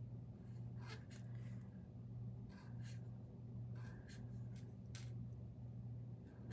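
Tombow brush pen strokes scratching faintly on smooth paper during hand lettering, a series of short strokes with brief pauses between them, over a steady low electrical hum.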